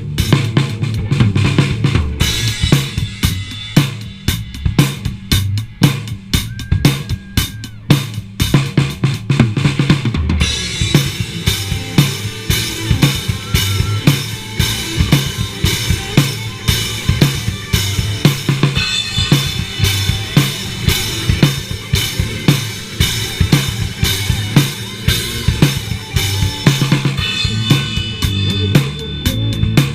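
Live band playing an instrumental rock jam, the drum kit loudest with steady bass drum and snare hits under bass and guitar, heard through a body-worn action camera's microphone. The playing gets brighter and busier about ten seconds in.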